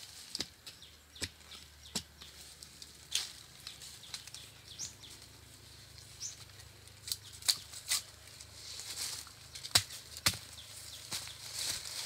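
Dry bamboo leaves rustling, with scattered sharp knocks and snaps as freshly dug bamboo shoots are handled and stacked.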